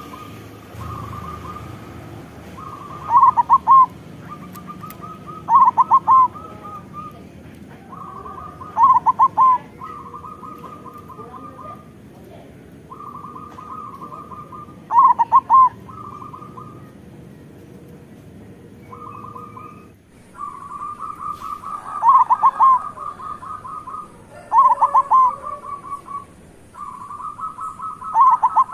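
Zebra dove (local perkutut) cooing steadily. Phrases of fast rolling coos are broken every few seconds by loud ringing notes, the full-voiced song of a bird in strong singing form.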